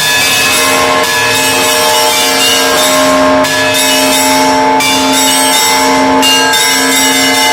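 Russian Orthodox monastery bells rung together, large and small bells struck again and again by their clappers. Their tones ring on and overlap in a dense, continuous peal.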